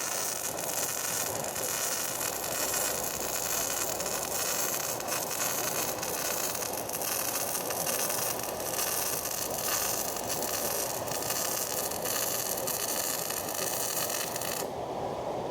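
Electric arc welding: a steady crackling hiss from the arc, which cuts off abruptly near the end as the arc is broken, leaving a duller background noise.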